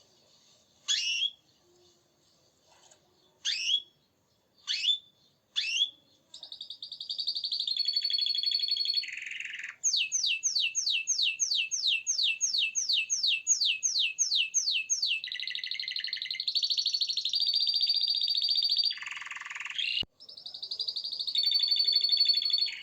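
Domestic canary singing: a few separate rising chirps, then from about six seconds in a continuous song of rolling trills, including a long run of fast rising notes at about three a second.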